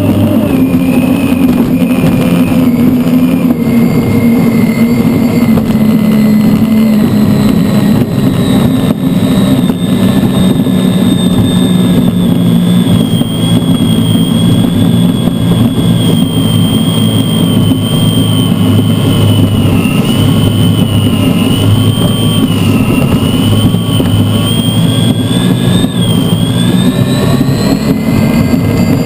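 Unlimited hydroplane's Lycoming T55 gas-turbine engine running at racing speed, heard from on board: a loud, steady high whine that wavers a little in pitch over a deep drone, with a constant rush of wind and spray.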